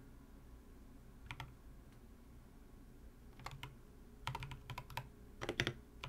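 Mechanical keyboard typing: stock Drop Holy Panda tactile switches in a Tofu60 with a brass plate and MT3 keycaps. A few scattered keystrokes at first, then quicker runs of keystrokes over the last couple of seconds.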